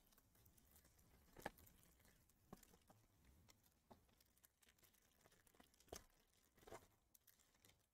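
Near silence, with a few faint crinkles and ticks from a foil trading-card pack wrapper being handled and torn open.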